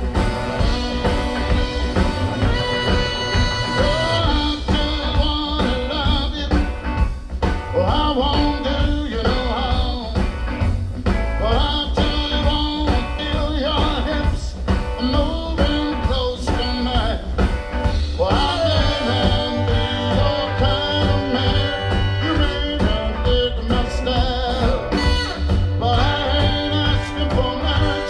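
Live blues-soul band playing: a male lead singer over electric guitars, bass, drums and keyboards, with a saxophone and trumpet horn section.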